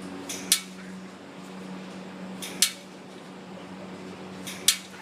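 Three sharp metallic clicks about two seconds apart, over a steady low hum: a pet bird tapping or knocking on its cage.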